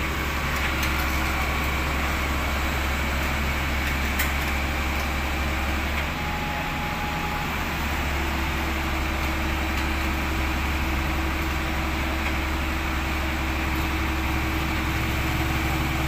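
Heavy truck engine idling steadily with a low, even rumble; a faint steady hum joins about eight seconds in.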